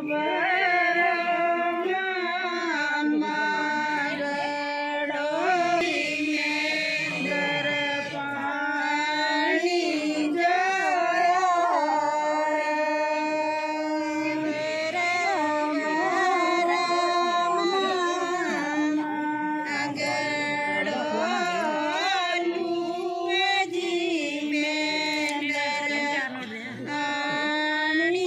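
A group of women singing a suhag geet, a traditional Himachali wedding folk song, in long held, gliding notes.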